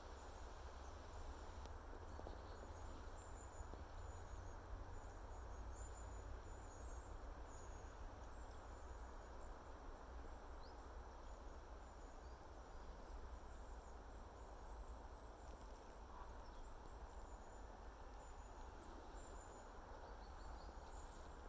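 Quiet natural outdoor ambience: faint high-pitched chirping comes and goes in short runs over a steady low rumble and a soft background hiss.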